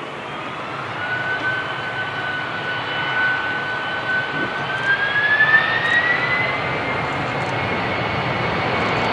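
Boeing 767-300 jet engines running with a steady rush and a high whine that climbs in pitch about five seconds in and then holds, the noise growing louder: the engines spooling up.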